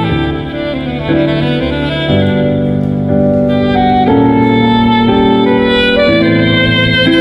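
Saxophone playing a Christmas tune in long held notes that change about once a second, over a low sustained accompaniment.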